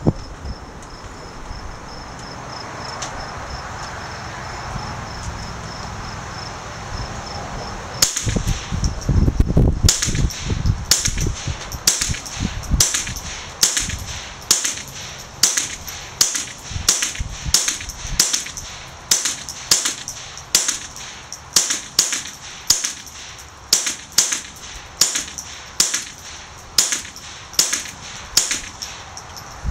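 A .22 Long Rifle AR-style rifle firing shot after shot in semi-automatic: a steady string of about thirty sharp cracks, roughly one and a half a second, starting about ten seconds in. A loud low rumble comes just before the first shots.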